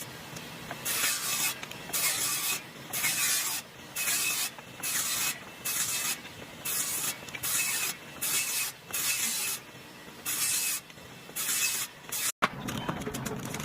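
A regular series of short hissing strokes, a little more than one a second, like spraying, brushing or scraping, cut off by a brief dropout near the end.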